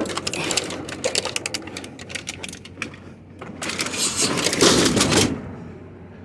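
An elliptical exercise machine being walked up and loaded, its frame and parts rattling and clattering in quick knocks. About three and a half seconds in comes a louder, longer scraping, the loudest sound here, which stops suddenly before the end.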